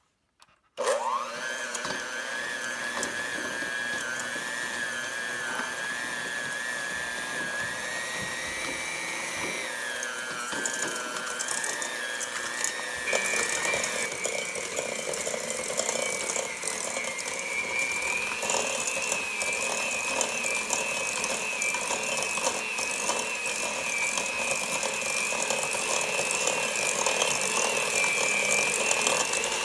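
Electric hand mixer switching on about a second in and running steadily, beating butter and sugar together to cream them. Its whine steps up in pitch a few times as it runs.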